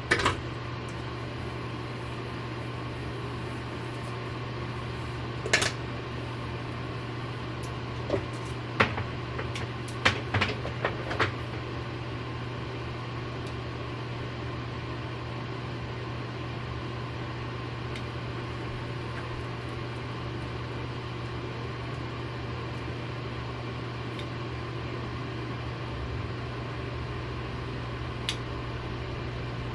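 A steady low hum with a handful of light clicks and taps scattered through it, as a crimp iron is clamped and moved along sections of hair.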